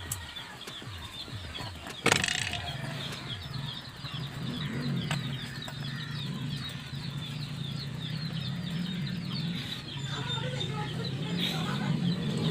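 Birds chirping rapidly and continuously in the background, with a sharp knock about two seconds in and a low steady hum that sets in soon after.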